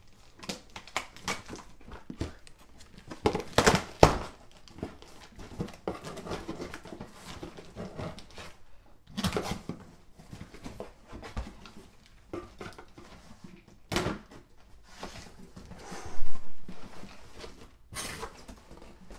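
A cardboard shipping box being handled and opened by hand: irregular rustling and scraping of cardboard flaps, with knocks and thumps as the box is moved, the loudest about four seconds in and near the end.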